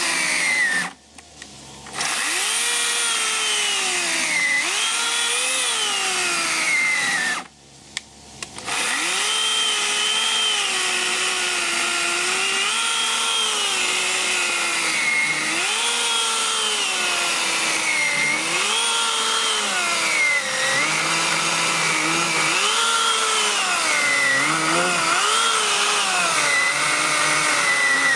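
Makita UC4020A corded electric chainsaw with a 40 cm bar cutting through a thick log, the motor's pitch sagging as the chain bites into the wood and climbing again as the load eases. It cuts out twice briefly, about a second in and again around seven and a half seconds in.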